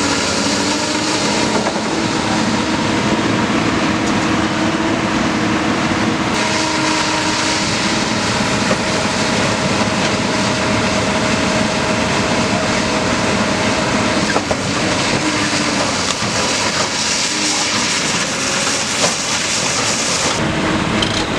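Komatsu PC200 excavator's diesel engine running steadily under working load, its pitch shifting slightly as the machine works.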